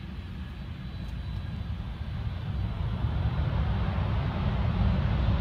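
Jet airliner on the runway, its engine noise growing steadily louder.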